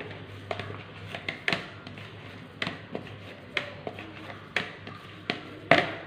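Hands kneading and pressing a soft bread-and-egg dough in a plastic bowl: a series of short taps and dull knocks as the dough is pushed against the bowl, the loudest one near the end.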